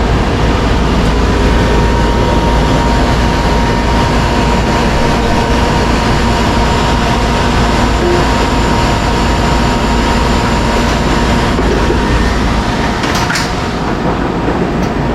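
1983 Whirlpool heat pump's outdoor unit running in cool mode: a steady, loud hum and rush of air from its compressor and condenser fan, with a faint steady whine over it. A couple of light ticks come near the end.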